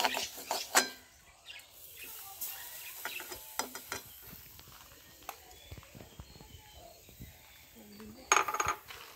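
Metal spoon scraping and clinking against an aluminium pan as a grated coconut mix is stirred, in irregular knocks and scrapes, with a louder clatter of strokes just after eight seconds in.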